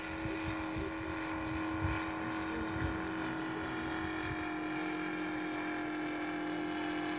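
Engine of a radio-controlled Stearman biplane model running steadily in flight, holding an even pitch.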